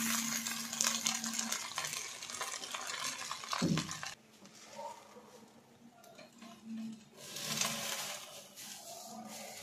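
A metal spatula stirring and scraping fried rice in a metal kadai. The stirring stops about four seconds in and comes back briefly near the end.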